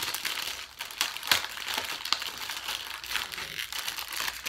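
Clear plastic blister packaging crinkling and crackling as hands twist and pull at it to tear it open. The package is hard to open. There is one sharp, louder click a little over a second in.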